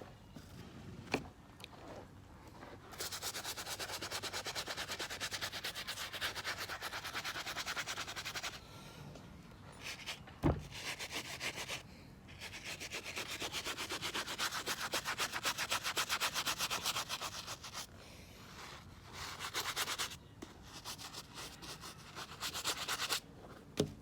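A brush scrubbing the outside of a sneaker in fast back-and-forth strokes, in long spells with short pauses between them. There is a single knock about ten seconds in.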